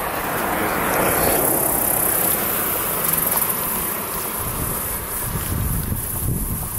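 Insects buzzing steadily at a high pitch across the marsh, with wind rumbling on the microphone.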